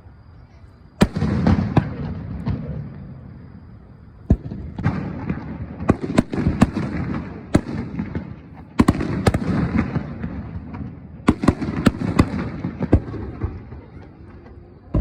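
Aerial fireworks shells bursting: a series of sharp bangs, some coming two or three close together, each trailing off in a low rolling rumble.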